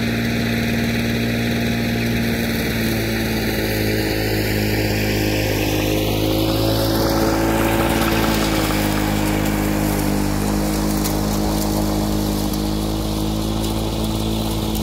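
Victa Commodore 160cc two-stroke rotary lawnmower running steadily at cutting speed under load in thick grass, as it is pushed past and away.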